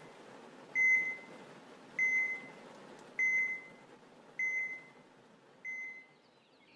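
Hospital patient monitor beeping at a steady heart-rate pace, five short single-pitch beeps a little over a second apart, each fainter than the last until they fade out.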